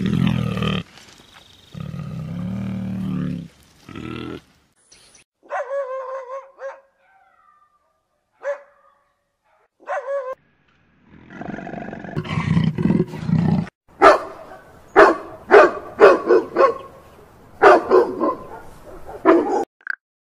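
A brown bear growls deeply for about four seconds. Then come high, drawn-out whines, and a small dog, a Pomeranian, growls and yaps in a quick run of sharp barks, about two a second, which stops shortly before the end.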